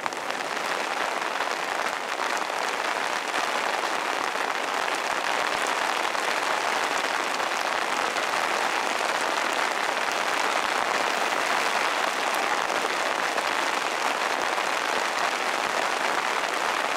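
Steady rushing hiss of rain and wind on a sailboat's canvas cockpit enclosure while under sail in a fresh breeze.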